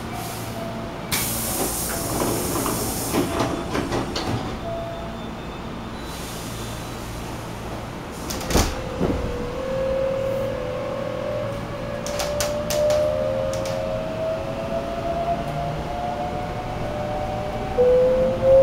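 Hankyu 8300 series train's sliding doors closing: a burst of compressed-air hiss with knocks as the door panels run shut, then a single sharp thump. A motor whine then rises slowly in pitch as the train starts to pull away.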